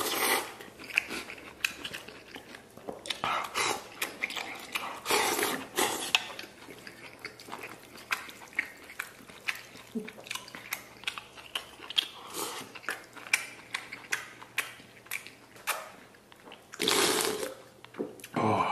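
A person slurping noodles in several long, noisy sucks, with wet chewing and lip-smacking clicks in between.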